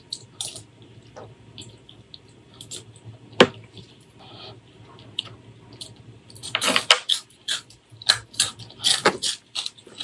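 Close-miked wet eating sounds of rice and spicy mustard greens being eaten by hand: chewing and lip smacks heard as sharp wet clicks, with one louder click a little over three seconds in. From about six and a half seconds in the clicking turns denser and louder.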